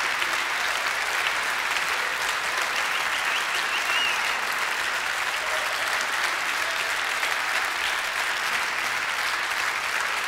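Audience applauding steadily, with a short high whistle about four seconds in.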